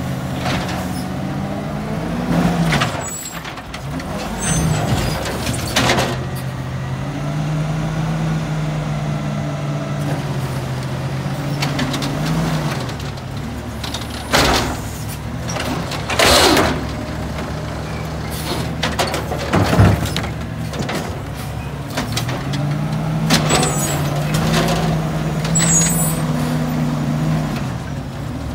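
Garbage truck engine running, twice speeding up and holding for several seconds as the truck works, with several sharp bangs of trash bins being slammed and a short hiss of air from the air brakes.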